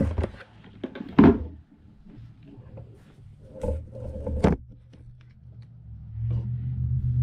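Handling noise: a few knocks and thunks as things are moved and set down on a hard surface. About six seconds in, a steady low hum starts and keeps going.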